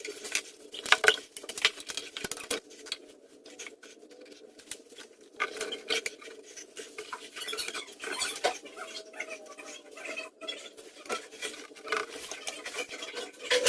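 Plastic waste pipe and fittings being handled and glued together: scattered light clicks, taps and knocks of plastic on plastic.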